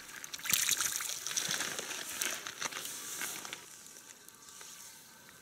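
Splashing and sloshing in shallow river water as a hand lets a small caught fish go. The splashing is sharp and busy at first and dies away a little past halfway.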